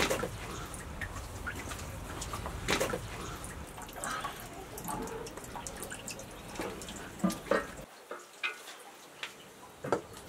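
Scattered light clicks and several louder knocks of metal cookware being handled and set down beside a wood fire, over a low background rumble that drops out about eight seconds in.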